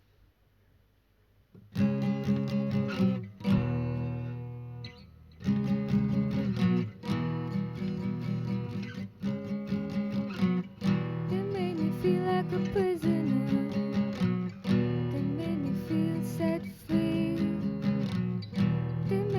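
Acoustic guitar strumming chords, starting about two seconds in after near silence, with a brief drop near four seconds before the strumming carries on steadily.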